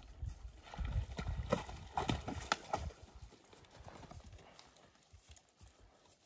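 Hoofbeats of a gray ranch horse walking over grass and soft ground. They are louder and closer over the first three seconds, then fade as the horse moves away.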